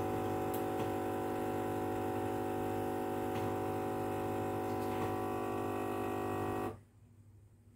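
A steady drone of several held tones with no change in pitch, cutting off suddenly near the end.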